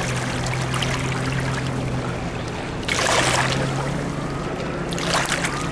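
Shallow lake water lapping and splashing against the rocks of the shore, with a louder splash about three seconds in and another shorter one near the end, over a steady low hum.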